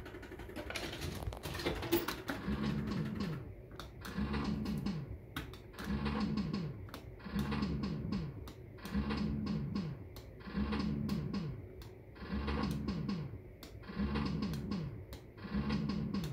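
Maygay Great Escape fruit machine with its reels clicking, and from a couple of seconds in a short electronic effect of falling tones repeating about every one and a half seconds.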